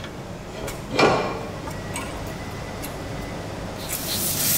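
Title-sequence sound effects: light mechanical ticking and clicks, a sharp hit about a second in, and a rising hiss near the end.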